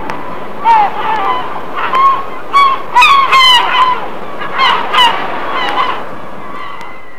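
Gulls calling: a string of loud, repeated calls, many sliding down in pitch, with a quick run of them about three seconds in, over a steady hiss.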